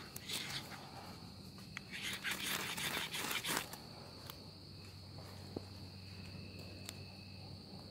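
Ferro rod scraped hard with a high-speed steel striker, several rasping strokes ending about three and a half seconds in, throwing sparks that light pine shavings. After that a steady high insect trill carries on, with a few faint ticks.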